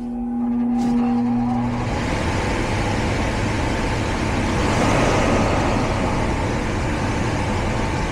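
A low electrical hum from an HVAC system whose blower motor is not running, ending about two seconds in. Underneath it, a loud, steady rushing noise of running machinery builds and holds.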